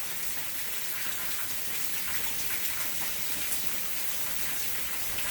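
Steady summer rain falling, an even hiss with faint scattered drop ticks.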